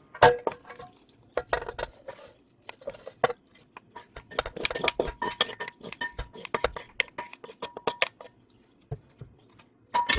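Kitchen utensils clinking, knocking and scraping against dishware, many quick irregular strikes as food is stirred and handled, with a faint ringing from the vessel in the middle stretch and a sharper clack at the end.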